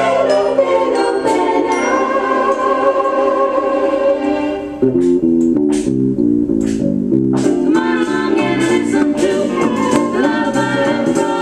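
A pop song with singing over held, organ-like chords; about five seconds in, a bouncing bass line and a beat come in under the voice.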